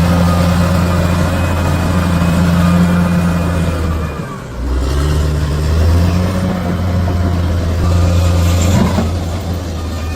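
Bulldozer's diesel engine running steadily. It drops off sharply about four seconds in, then picks up again at a changed pitch, with a short rise near the end.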